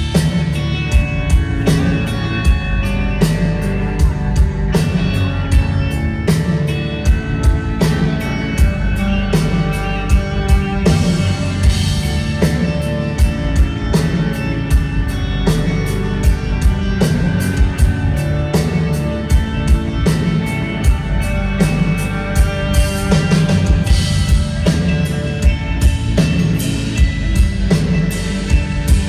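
Rock music with a drum kit keeping a steady beat and guitar.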